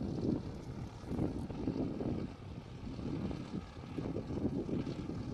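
Cessna 152's four-cylinder Lycoming engine and propeller running at low taxi power, heard as an uneven low drone.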